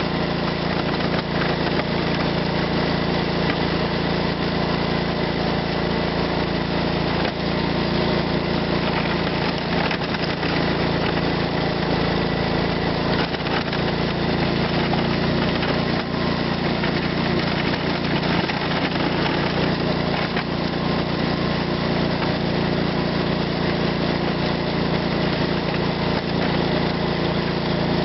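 Gravely 8123 garden tractor's engine running steadily at an even pitch while it plows snow with a front blade in high-range third gear.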